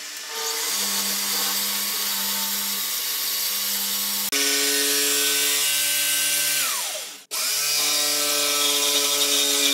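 DeWalt plunge track saw running along its guide rail, cutting wood, with its vacuum hose attached. About seven seconds in, the motor winds down in falling pitch and stops, and a steady motor starts up again a moment later.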